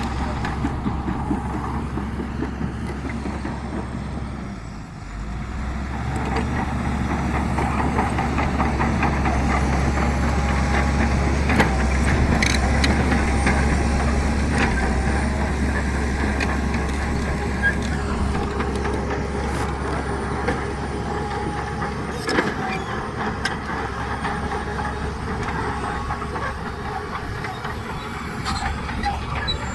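Heavy diesel engine of earthmoving machinery running steadily. It drops briefly about five seconds in, then swells again and is loudest around the middle, with a few sharp metallic knocks.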